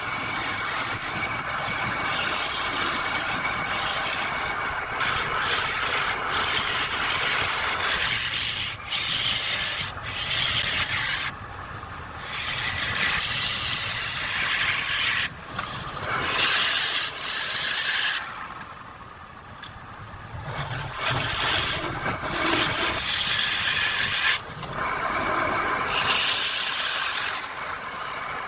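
Wood spinning on a lathe being worked with a tool: a rough scraping hiss that comes in passes and stops and starts every few seconds.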